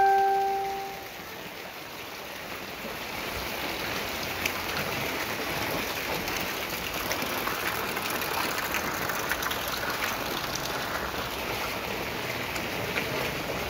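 Rain falling on muddy floodwater that covers a lane, a steady hiss of drops pattering on the water's surface. Right at the start a loud ringing tone sounds and fades away within about a second.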